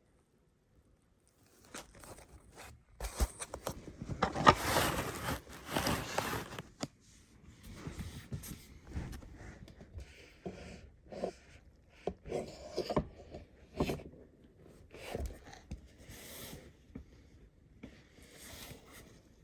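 Handling noise while a gaming chair is put together: irregular scraping, rustling and clattering of chair parts and packaging. It starts after a second or two and is busiest between about three and seven seconds in.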